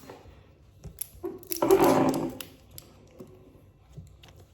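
Toy packaging being handled and pulled open: scattered light clicks and rustles, with one louder tearing rasp about two seconds in that lasts under a second.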